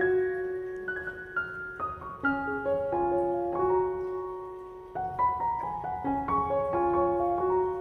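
Background music: a gentle piano melody of ringing notes that fade after each stroke.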